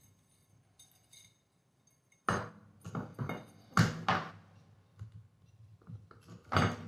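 Metal parts of a dismantled gate motor knocking on the workbench and against each other. There are two sharp clunks about two and four seconds in, a few lighter clinks, and another knock near the end as the motor's end bracket is set down and the stator is handled.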